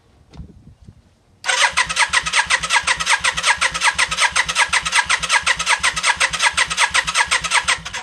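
Yamaha Virago XV535's electric fuel pump ticking rapidly and evenly, about seven clicks a second, as it primes the carburettor float bowls with the key switched on. It starts suddenly about a second and a half in.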